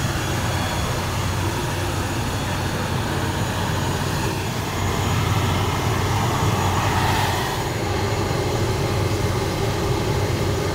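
Steady airport apron noise: a constant low engine hum under a broad rushing noise from aircraft and ground equipment running, growing a little louder about halfway through.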